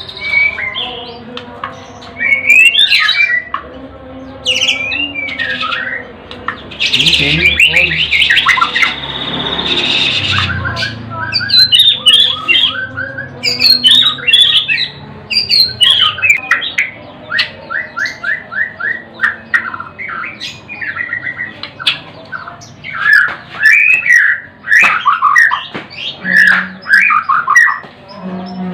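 White-rumped shama (murai batu) singing: a long run of varied whistled phrases that swoop up and down, with fast strings of repeated notes. About seven seconds in it breaks into a harsh, scratchy squawk that lasts a few seconds.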